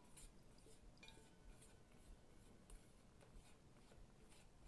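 Near silence: quiet room tone with a few faint scattered ticks.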